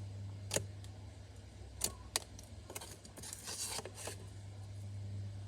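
Slime being handled for ASMR, giving sharp little pops three times, then a brief crackly squish a little past the middle, over a steady low hum.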